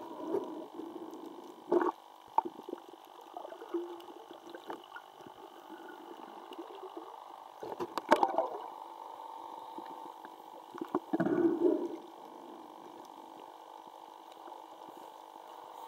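Muffled underwater ambience picked up by a submerged camera: a steady dull hum with louder gurgling bursts about two, eight and eleven seconds in, the last lasting about a second.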